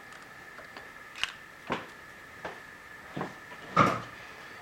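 Metal clicks and knocks as a coaxial centring indicator is taken out of a milling machine spindle, five separate knocks with the loudest about four seconds in, over a faint steady high tone.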